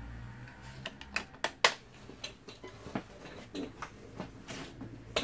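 Irregular sharp plastic clicks and knocks as the cordless stick vacuum's filter unit is unclipped and handled, with one louder snap about a second and a half in and a brief rustling swish near the end.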